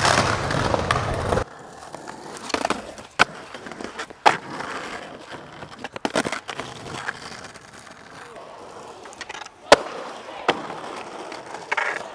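Skateboard wheels rolling over pavement, broken by several sharp clacks of the board's tail popping and the board landing, the loudest near the end. The rolling is louder in the first second and a half, then drops abruptly.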